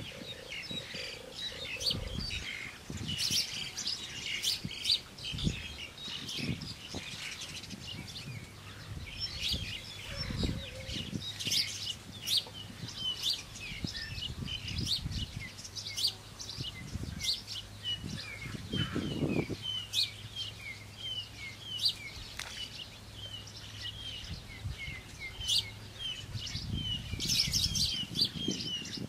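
Small birds chirping continuously, a dense run of short, quickly repeated high chirps. Through them come occasional soft thumps and knocks as wet mud is slapped and pressed by hand onto a bamboo-lattice wall.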